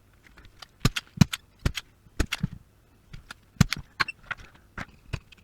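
Irregular sharp clicks and taps, about fifteen, of hand tools working on a circuit board while a component's legs are being desoldered.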